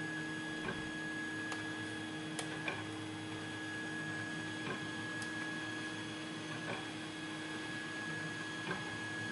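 Faint, scattered metallic clicks of a lock pick working the pins of a lock, a handful of light ticks spread out over several seconds as pins are set. A steady electrical hum runs underneath.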